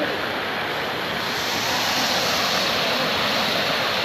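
Fountain water jets splashing into a basin: a steady rushing of falling water that grows louder about a second and a half in.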